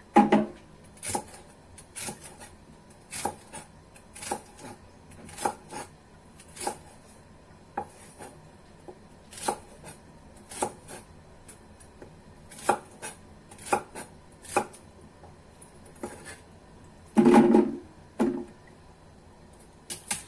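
Cleaver chopping through celery stalks onto a wooden cutting board: a series of sharp knocks, roughly one a second, with a louder, longer knock about seventeen seconds in.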